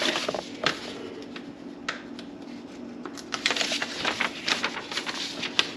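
Paper and packaging rustling and crinkling as a paper drill template is handled and unfolded, with scattered light clicks and scrapes.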